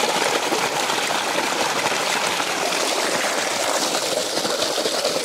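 Steady rush of water as freshly pulled peanuts in their shells are washed clean of soil.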